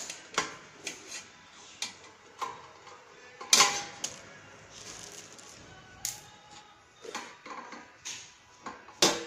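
A screwdriver clicking and knocking against the screws and stainless-steel body of a churros machine as it is taken apart. The metal clicks and taps come at irregular intervals, some ringing briefly, and the loudest are about three and a half seconds in and near the end.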